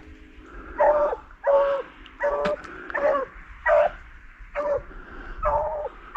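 Beagle baying in short, evenly spaced barks, about one every three-quarters of a second: a rabbit hound giving voice as it runs a rabbit's track.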